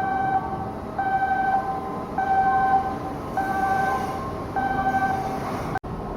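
Electronic warning chime sounding a short two-note pattern over and over, about once every second and a bit, over steady shipyard machinery noise. It breaks off abruptly near the end.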